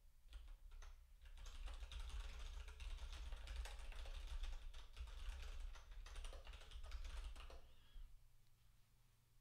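Fast typing on a computer keyboard: a dense run of key clicks for about six seconds that stops near the end, over a steady low hum.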